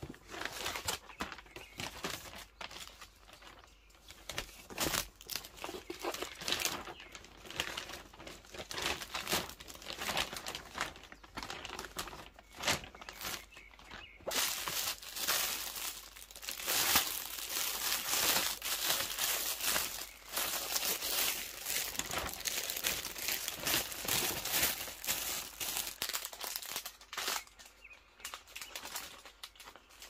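Thin plastic gift bags and plastic wrapping crinkling and rustling as they are handled, in a run of irregular crackles that grows denser and louder through the middle.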